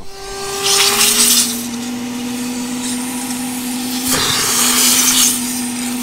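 Wet/dry shop vacuum running with a steady motor whine and rushing air, its whine rising in pitch over the first couple of seconds. It is sucking debris out of a split air conditioner's clogged condensate (evaporator) drain tube through a hose on the drain outlet; the rush of air swells louder about a second in and again near the end.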